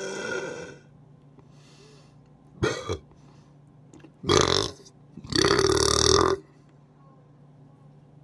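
A person burping four times: one trailing off just at the start, a short one a couple of seconds later, then two louder burps, the last held for about a second.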